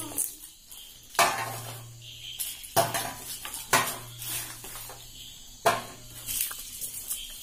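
Roasted jackfruit seeds clinking one by one into a stainless steel bowl as their charred skins are rubbed off by hand: four sharp clinks, spaced a second or two apart.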